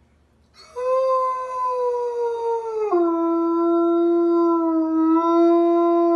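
A dog howling: one long, unbroken howl that starts about half a second in, slides slowly down, drops suddenly to a lower pitch about three seconds in, then holds steady.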